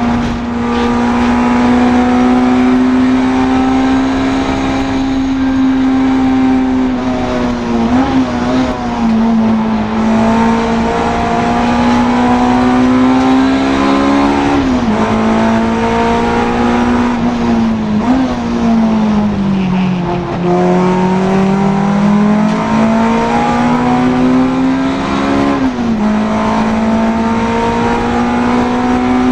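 Honda Integra DC2 race car's four-cylinder engine running hard at high revs, its note climbing slowly and dropping briefly at gear changes about four times, with one longer fall and recovery about two-thirds through.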